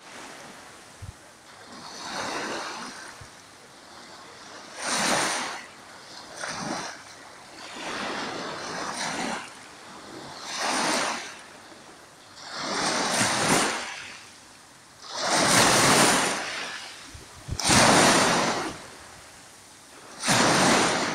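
Small sea waves washing in at the water's edge, one swell of surf every two seconds or so, each rising and falling away. The washes grow louder in the second half.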